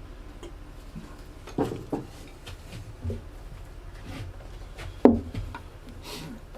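Scattered light knocks and clicks of handling with a brief rub, as teak oil is worked onto a wooden ukulele's fretboard and bridge; one sharper knock comes a little past halfway.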